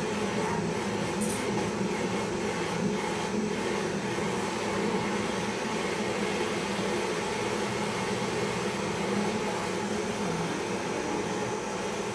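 Handheld butane gas torch burning with a steady hiss as it heats a small traditional popcorn machine.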